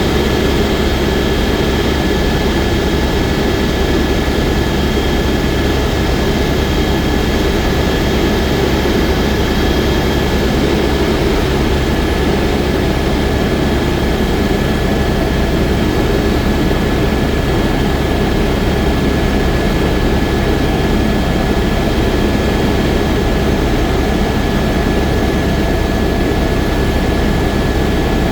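Helicopter in flight: a steady, loud drone of rotor and engine with a thin, high, constant whine over it.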